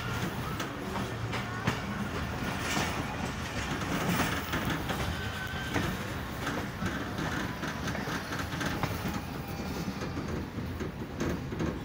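Passenger train coach rolling along the track, heard from an open window: a steady rumble of wheels on rail with frequent sharp clicks over the joints.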